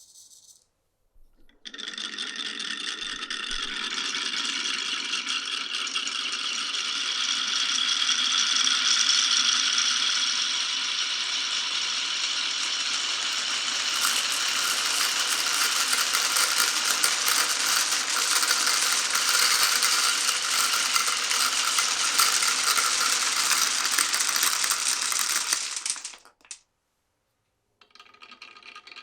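A stream of marbles rolling and clattering together down a wooden marble run track, a dense continuous rattle of many small clicks. It starts about a second and a half in, turns brighter about halfway through, and stops abruptly near the end.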